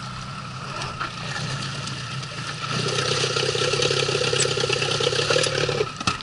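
Suzuki 9.9 hp outboard motor running on an inflatable boat, steady at first. About three seconds in it grows louder with a higher note added, then drops back just before the end.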